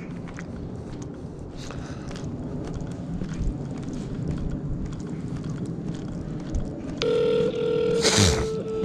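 Steady outdoor background noise, then about seven seconds in a phone's ringing tone for an outgoing call starts, one steady tone. About a second later a brief rush of noise passes over it.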